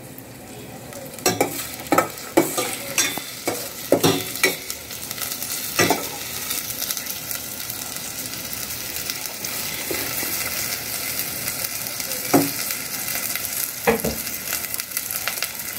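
Onion, hot dog and red bell pepper sizzling as they fry in a stainless steel saucepan. A metal ladle clinks against the pot as they are stirred, several times in the first six seconds and twice more near the end.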